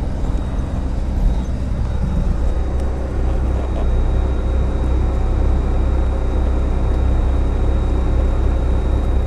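Steady low rumble of a truck's engine and road noise, heard inside the cab while driving.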